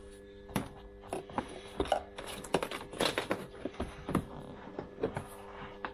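Hands handling wiring and a rubber floor mat, pressing the mat into place: irregular taps, clicks and rustles over a faint steady hum.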